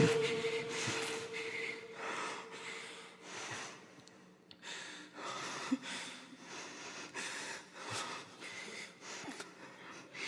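A man sobbing: short, breathy gasps and sniffs about two a second, with a brief stop near the middle, the reciter overcome with weeping during the recitation. It opens with the last recited note dying away in the room's echo.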